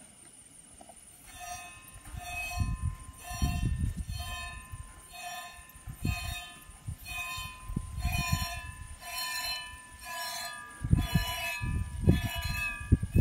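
Goat being milked by hand: milk squirting into a pail in a steady rhythm, about three squirts every two seconds, starting about a second in, with the pail ringing between squirts.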